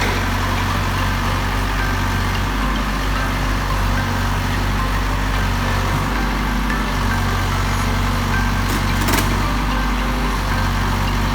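Diesel engine of a Volvo EC55D mini excavator running steadily at low revs, with a single sharp click about nine seconds in.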